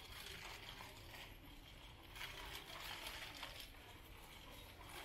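Faint supermarket background noise: a shopping cart being pushed over a tiled floor amid low, indistinct store hubbub.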